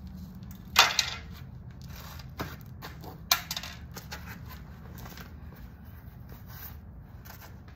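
Broken pieces of a smashed TV clicking and clattering as they are handled, with two sharper knocks, about a second in and after about three seconds.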